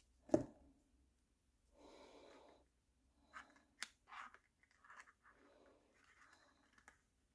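A single sharp knock about a third of a second in as a plastic glue bottle is set down on the craft mat, then faint rustling of paper and twine with a few light taps as a small paper leaf is pressed onto a paper box.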